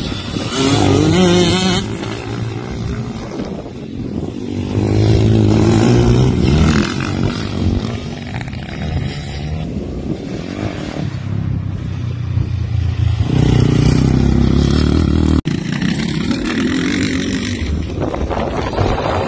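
Dirt bike engines revving as the bikes ride along a dirt track, the pitch climbing and falling through the gears. The sound breaks off sharply for an instant about fifteen seconds in, then carries on.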